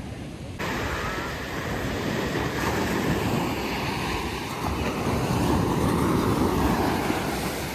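Sea surf breaking and washing up a sandy beach in a steady rush, starting about half a second in, with wind buffeting the microphone.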